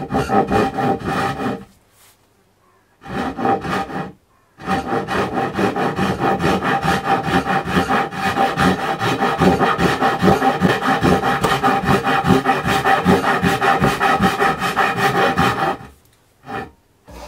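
A hand tool worked rapidly back and forth on wood, about four even strokes a second. It stops briefly about two seconds in and again around four seconds, then runs on steadily until near the end.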